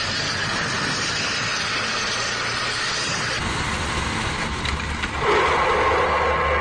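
Motor vehicle noise, a steady engine-and-traffic wash that grows louder about five seconds in and then cuts off abruptly.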